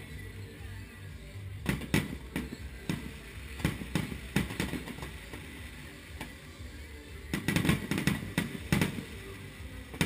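Aerial fireworks shells bursting overhead: a string of separate sharp booms in the first half, a pause, then a quick cluster of bursts near the end.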